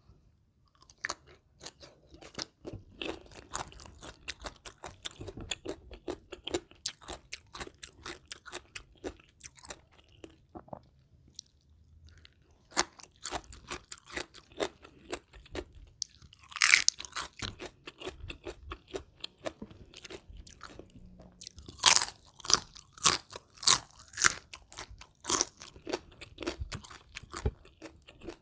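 Close-miked eating of crisp food: steady chewing and crunching. Louder crisp bites come about 17 seconds in and several more from about 22 seconds, with a short lull around 10 to 12 seconds.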